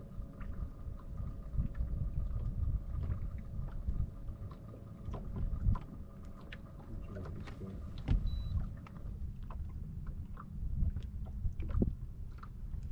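Wind rumbling on the microphone and water lapping against a small fishing boat's hull, with scattered small clicks. A faint steady whine runs underneath and stops about nine seconds in.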